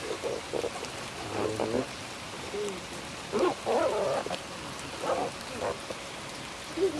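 Low voices talking in short phrases, several spaced bursts, over a steady background hiss.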